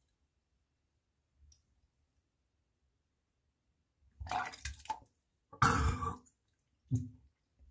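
A person retching, three wet bursts starting about four seconds in, the middle one loudest.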